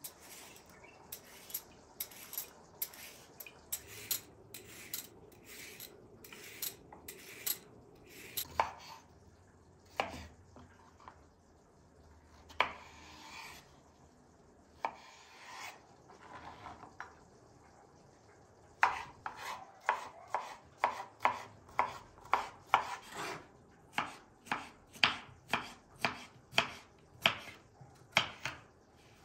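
A vegetable peeler scraping a cucumber in quick strokes, then a kitchen knife chopping cucumber on a wooden cutting board. The chopping comes in the second half, as a steady, loud series of about two chops a second.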